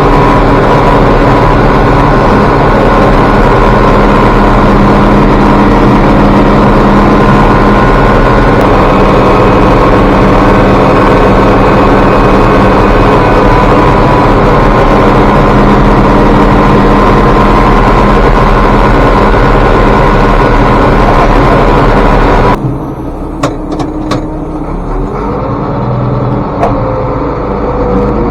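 Tractor engine running steadily at constant speed, loud and even. About 22 seconds in it cuts off abruptly, leaving a much quieter background with a few sharp clicks.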